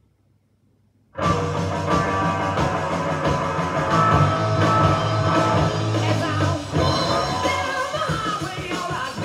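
Rock music with singing played from a vinyl record through a hi-fi system. Near silence for about a second, the gap between tracks, then the next track starts abruptly at full level with the band and vocals.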